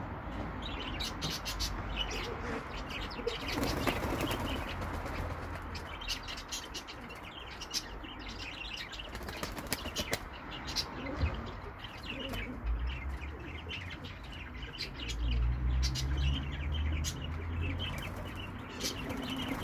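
Old Dutch Capuchine pigeons flapping and fluttering their wings as they move about a wire-mesh aviary, with many short sharp clicks and taps throughout.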